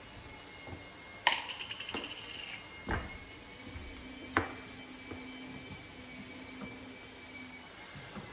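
Kitchen clatter: a loud rattling run of quick clicks about a second in, lasting about a second, then a thump and a single sharp click.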